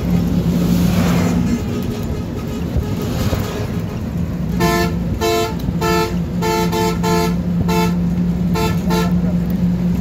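Steady engine and road noise heard from inside a moving bus. About halfway through, a vehicle horn sounds in a rapid series of about nine short toots.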